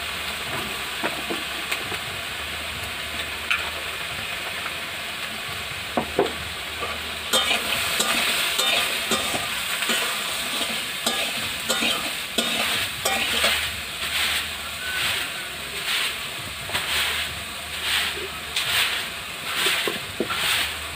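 Mixed vegetables sizzling in hot oil in a pan, just seasoned with turmeric, salt and ground cumin. From about seven seconds in, a spatula stirs and scrapes them in a steady rhythm of about three strokes every two seconds.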